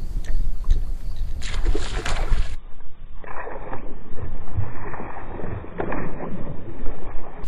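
Wind rumbling on the microphone over water sloshing against a bass boat's hull.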